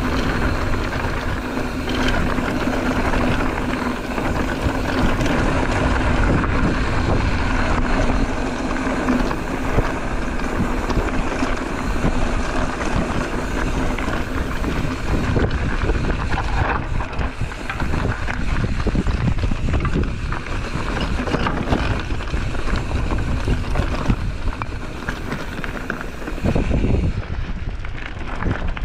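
Wind rushing over the microphone of a bicycle riding a dirt trail, mixed with tyre and rattle noise. A steady low hum sits under it for about the first half.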